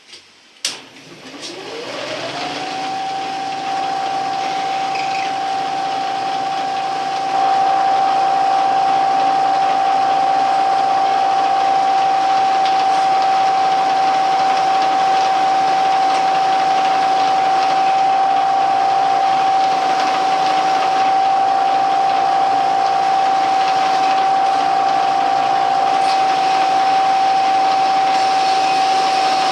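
Milling machine spindle switched on with a click, its whine rising in pitch over about two seconds and then running at a steady speed. A little after seven seconds in the sound grows louder and stays so.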